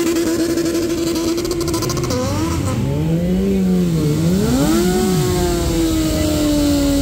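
Sport motorcycle engine held at high revs for a burnout. It gives a steady high note, then for a few seconds the revs drop and rise again, then it is held high again with the pitch slowly sagging near the end.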